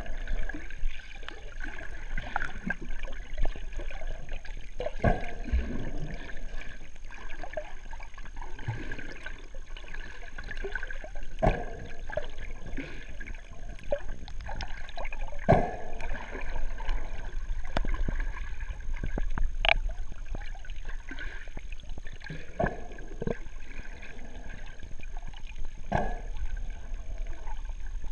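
Muffled underwater noise picked up by a GoPro in its waterproof housing, with a burst of bubbling every four to six seconds: a scuba diver exhaling through the regulator.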